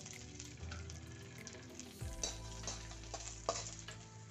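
Dried coconut pieces sizzling in a spoonful of hot oil in a kadhai as they are roasted, with a spatula stirring and a few short taps against the pan.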